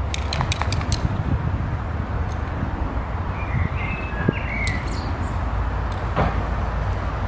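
Outdoor background noise: a steady low rumble, with a few sharp clicks in the first second and a bird chirping a few times near the middle.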